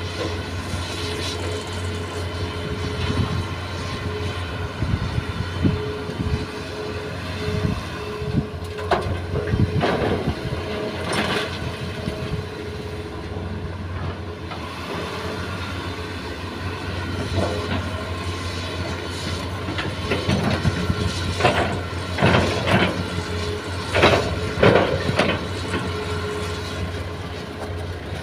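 Hitachi hydraulic excavator's diesel engine running steadily under working load, with irregular clanks and scraping as the bucket digs and dumps soil. The knocking comes in two spells, about ten seconds in and again from about twenty to twenty-five seconds in.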